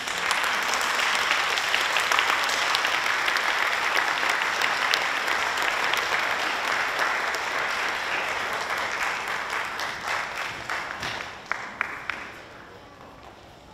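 Audience applauding. The clapping is steady for about ten seconds, then thins out to a few last separate claps and dies away about twelve seconds in.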